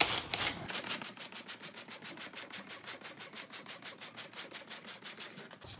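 A corded drill driving a 3000-grit sanding disc over the wet plastic headlight lens: a rhythmic rasping, about seven strokes a second, after a loud start.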